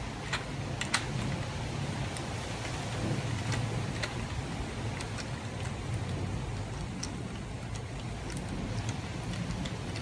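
Hand ratchet tightening a frame slider's mounting bolt: scattered light clicks at irregular intervals over a steady low rumble.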